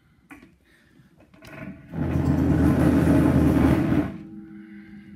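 Handling noise as the recording setup is moved to a new spot: a loud rumbling scrape lasting about two seconds, followed by a faint steady hum.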